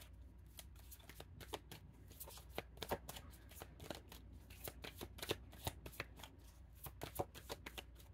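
Tarot cards being shuffled by hand: an uneven run of crisp card snaps and taps, about three a second.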